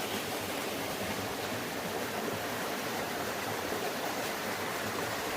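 Stream water running and splashing over small waterfalls and rapids, a steady rushing.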